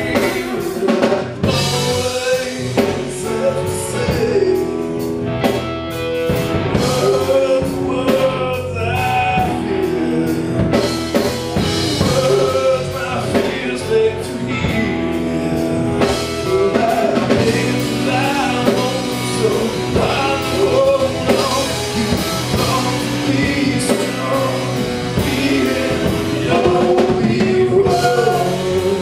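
Rock band playing live: two electric guitars, bass guitar and drum kit, with a male lead vocal sung over them.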